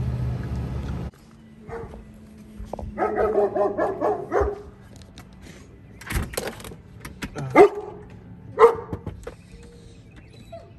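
A dog barking: a quick run of barks about three seconds in, then two loud single barks about a second apart near the end.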